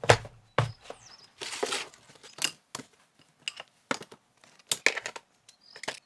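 Hard objects being handled and set down: a run of sharp clicks and knocks, with a stretch of rustling about a second and a half in.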